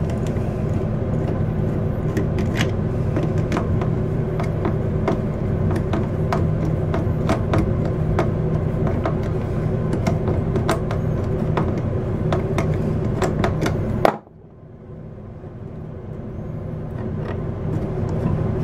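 Cordless electric screwdriver with a nut-driver bit running steadily as it backs out the screws on a Dometic toilet's water valve, a motor hum with light irregular clicking. It stops suddenly about 14 seconds in.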